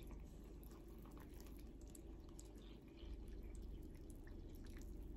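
Water pouring faintly in a thin stream from a jug into a bowl of flour and liquid batter ingredients.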